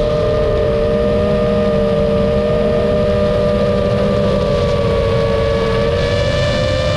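FPV racing drone's motors and propellers whining steadily, two close tones wavering slightly over a rushing noise, the pitch rising a little near the end as the throttle comes up.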